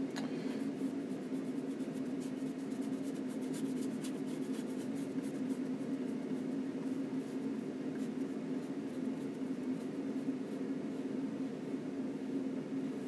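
A flat brush scrubbing and dabbing oil paint onto a linen panel: many quick, scratchy strokes, dense for the first two-thirds and sparser near the end, over a steady low hum.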